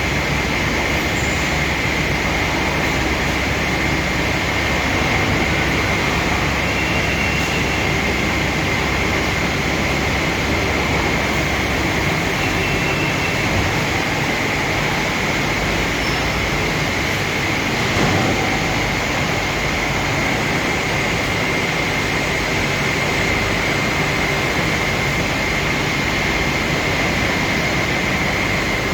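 A machine running steadily, with a constant high whine over an even rushing noise; a low rumble underneath drops away about twelve seconds in.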